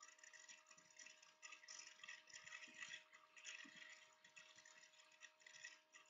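Near silence: faint, uneven hiss with a steady low hum underneath.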